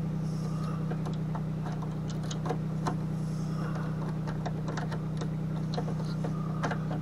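Irregular light metallic clicks and ticks of needle-nose pliers handling welding wire at the drive-roll mechanism of a Hobart MIG welder, over a steady low hum.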